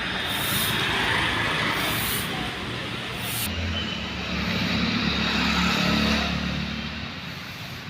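Road traffic noise. About halfway through it changes abruptly to a nearer motor vehicle's engine running with a low hum, which fades toward the end.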